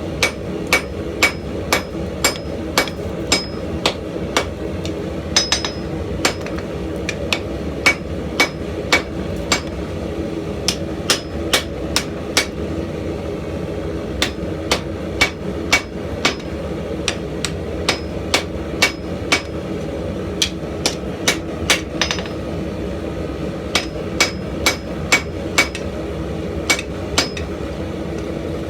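Hand hammer striking hot leaf-spring steel on an anvil, about two blows a second in runs broken by short pauses, as the spear point is drawn out. A steady noise runs underneath the blows.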